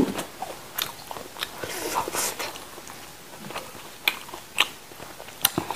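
Close-up mouth sounds of a person biting and chewing crunchy raw food, with a few short sharp crunches scattered through, the clearest ones near the end.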